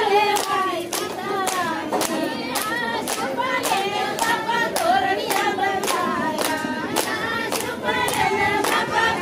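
A group of women singing a song together, keeping time with steady hand-clapping at about two claps a second.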